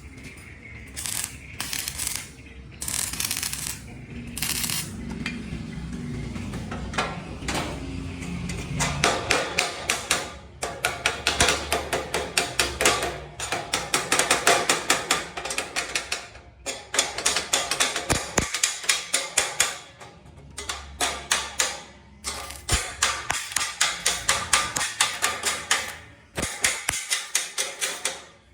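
Rapid mechanical clicking or tapping, several strokes a second, in runs that stop and start, after a stretch of scattered knocks.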